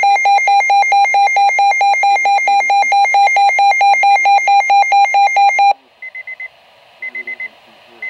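Weatheradio Canada's broadcast warning alert tone: a loud two-tone alarm warbling between a low and a high pitch about five times a second, which cuts off suddenly over five seconds in. After it, faint radio hiss and three short bursts of quieter high beeps about a second apart.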